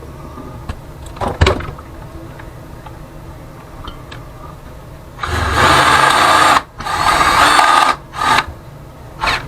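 Power drill running in several short bursts, drilling out a hole to make it bigger; the first burst starts about five seconds in. A single knock comes about a second and a half in.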